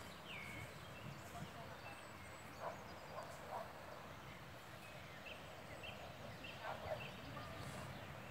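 Faint outdoor ambience with a steady low rumble and scattered short, high bird chirps. Twice there is a brief cluster of lower-pitched animal calls, about a third of the way in and again near the end.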